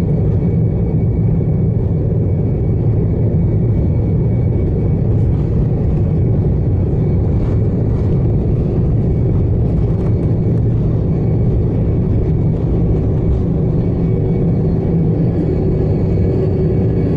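Inside the cabin of an Embraer E190 on its takeoff roll: the General Electric CF34-10E turbofans at full takeoff power and the airliner rolling down the runway make a loud, steady, deep noise, with a faint steady whine above it.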